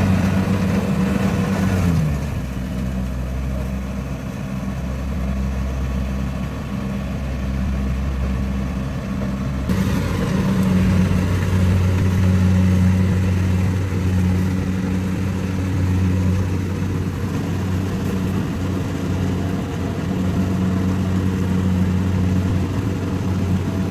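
Rice combine harvester's diesel engine running steadily. It drops to a lower speed about two seconds in, then picks back up to its higher running speed about ten seconds in.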